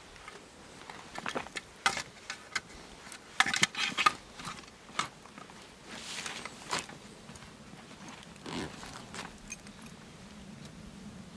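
Camping gear being handled at a backpack: irregular metallic clinks, jingles and rattles from buckles and strapped tools, with a dense cluster about three to four seconds in and scattered single clicks and rustles around it.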